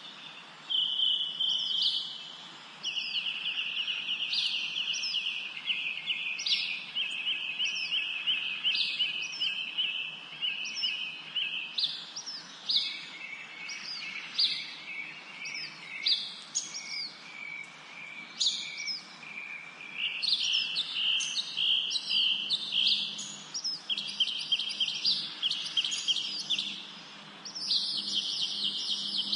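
Birds chirping and calling without a break, several overlapping voices: fast high trills and short downward-sweeping chirps.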